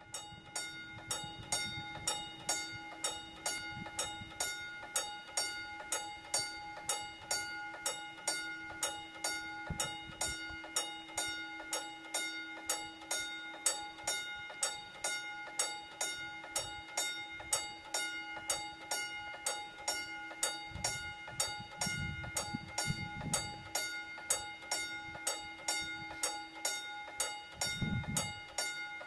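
Railway level-crossing warning bell ringing in quick, even strikes, about three a second, its ringing held between strikes. A few dull low thuds come in over it about three quarters of the way through and again near the end.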